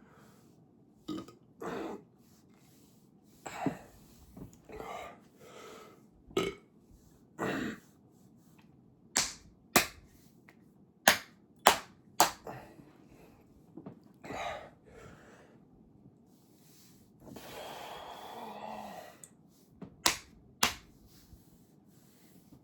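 A man belching over and over, short burps and one long drawn-out belch of about two seconds near the end, the gas from drinking soda. Sharp slaps or smacks come between the burps and are the loudest sounds, in clusters around the middle and near the end.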